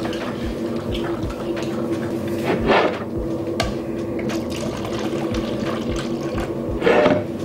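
Red punch poured from a glass jug into plastic party cups, liquid running and splashing as the cups fill, with a couple of louder knocks from the jug and cups.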